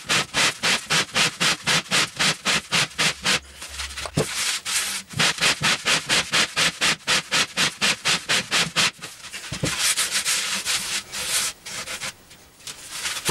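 Hand sanding: sandpaper rubbed back and forth across a surface in quick, even strokes, about four a second, with a couple of short breaks.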